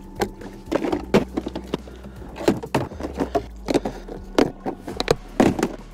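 A run of irregular knocks and clatters from gear being handled on a fishing boat's deck, over a steady low hum.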